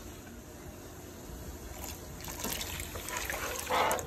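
Water boiling in a pot, then a cornmeal-and-water slurry poured into it from about two seconds in, trickling and splashing, loudest near the end.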